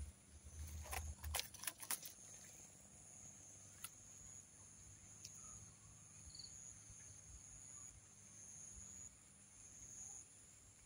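Insects droning steadily in a high, thin, faint tone, with a few brief sharp clicks in the first two seconds.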